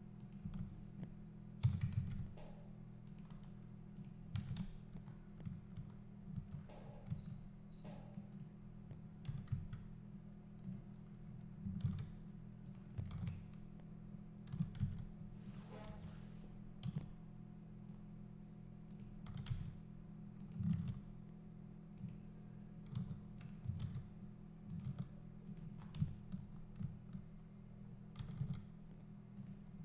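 Computer keyboard and mouse clicks, scattered in irregular clusters over a steady low hum.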